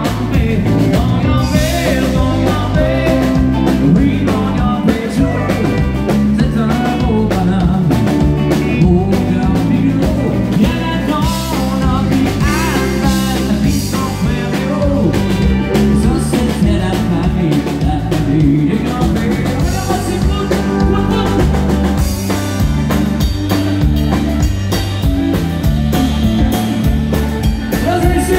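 A live country-rock band playing through a PA: a man singing over electric guitar and drums, with a steady beat.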